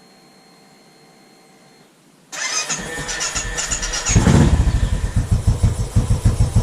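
A Royal Enfield Classic 500's single-cylinder engine being started: after about two seconds of quiet it cranks over, then catches about four seconds in and settles into a steady idle of even, regular thumps.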